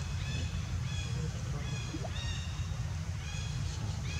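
Short, high animal calls repeating two or three times a second, over a steady low rumble.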